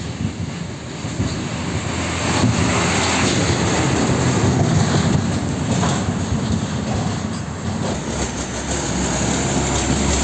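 Red Hino diesel tractor unit hauling a container semi-trailer drives past close by, engine and tyres growing louder and peaking a few seconds in, with a few knocks and rattles from the trailer. About eight seconds in, a second container truck's engine comes in with a low steady drone as it pulls up alongside.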